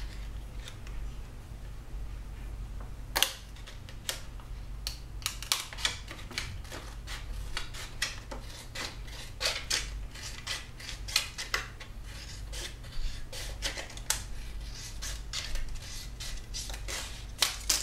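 Scissors cutting a folded half of a 2-liter PET plastic soda bottle in two along its crease: a run of short, sharp, irregular snips, sparse at first and coming thick and fast from about three seconds in.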